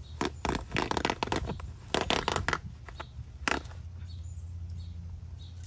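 Plastic bag of sand crinkling and rustling in a quick run of sharp crackles as it is sliced and pulled open with a knife, stopping about three and a half seconds in.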